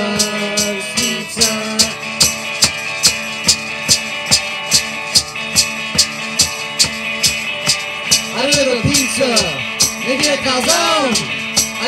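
Live band music: an instrumental stretch with a steady shaker or tambourine beat of about three hits a second over sustained chords, and a melody line of gliding, swooping notes coming in about eight seconds in.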